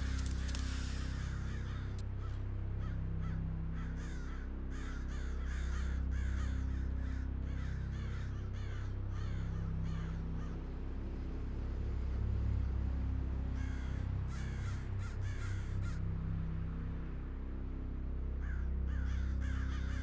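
Birds cawing repeatedly in bursts over a loud, steady low droning hum whose tones shift slowly.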